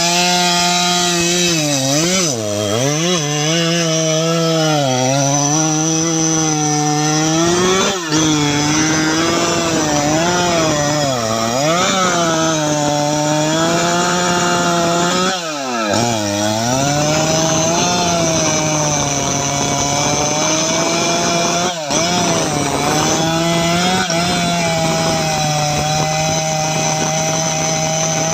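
Jonsered 2095 Turbo chainsaw's 93.6 cc two-stroke engine running at high revs, its pitch sagging and recovering several times as it loads up in the teak cut, then holding steady near the end.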